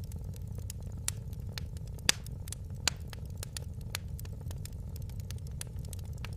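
Wood fire crackling in a fireplace: many sharp pops and snaps at irregular intervals, the loudest about two seconds in, over a steady low rumble.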